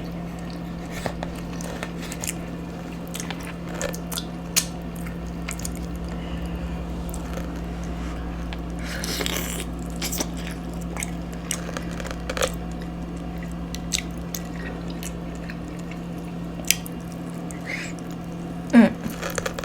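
A person eating General Tso chicken wings and rice: chewing and biting, with scattered small clicks and crunches, over a steady low hum. A short loud sound comes near the end.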